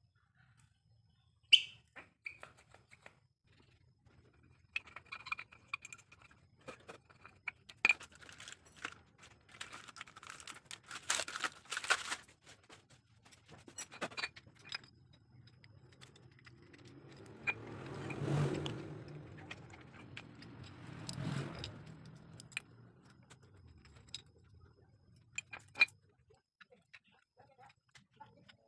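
Light metallic clinks, taps and scrapes of motorcycle rear drum-brake shoes, their return springs and the brake panel being handled and fitted, some parts ringing briefly. Around the middle a louder rushing noise swells and fades twice.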